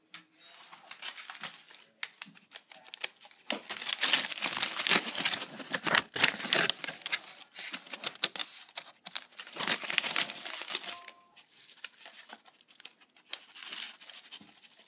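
Aluminium foil wrapped round a burrito, crinkling and crackling as it is opened and handled by hand. It comes in irregular bursts, loudest for a few seconds from about three and a half seconds in and again around ten seconds in.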